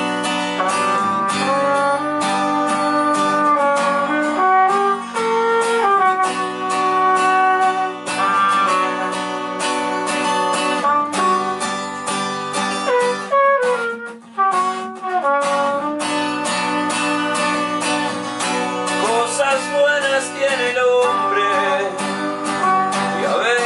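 Acoustic guitar strumming chords while a trumpet plays the melody over it, in an instrumental passage with no singing.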